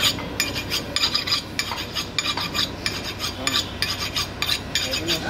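A butcher's knife being sharpened by stroking it quickly against another steel blade: rapid metal-on-metal scraping strokes, about three a second.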